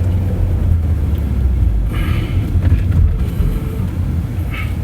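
Car interior road and engine noise while driving in city traffic: a steady low rumble, with brief faint higher sounds about two seconds in and again near the end.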